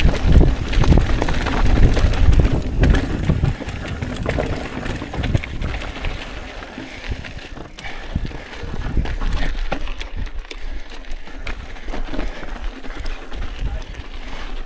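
Mountain bike riding over a rocky dirt trail: tyre noise with frequent clicks and rattles of the bike over rocks. A heavy rumble fills the first few seconds, then eases.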